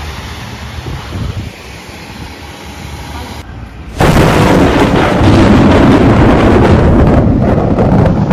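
Tyres hissing on a wet road as an SUV drives past. About four seconds in, a sudden, much louder rush of wind buffets the microphone and goes on to the end.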